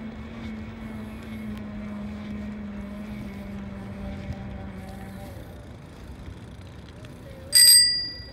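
E-bike riding on pavement: wind and tyre noise with a steady motor hum that stops about five seconds in. Near the end a bicycle bell rings once, loud and bright, dying away within about half a second, a warning to walkers ahead.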